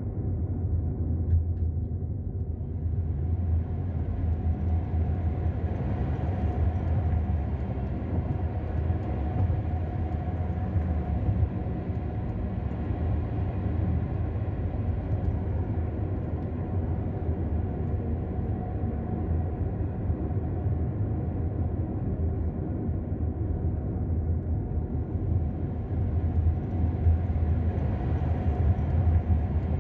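Steady low rumble of a car's engine and tyres on the road, heard from inside the moving car, a little louder near the end.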